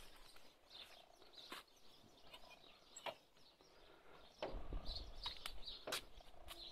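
A few sharp clicks and knocks as a painted sheet-metal garden gate is opened and walked through, over faint birds chirping. A low rumble comes in after about four seconds.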